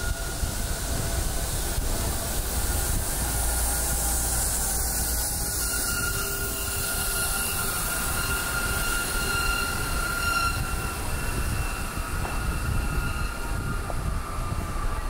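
Red city bus driving past close by: a low rumble with a steady high whine running through it.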